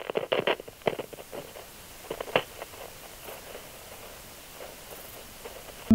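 A quick run of small clicks and rustles, like gear being handled close to the microphone, thinning out after about two seconds into faint room hiss.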